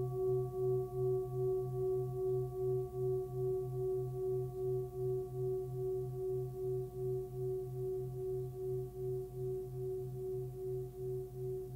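Hand-forged 26.5 cm Full Moon singing bowl, pitched near 130 Hz (between B and C), ringing on after being played. Its low hum and several higher overtones sound together, and the tone wobbles in a steady beat about three times a second while slowly fading.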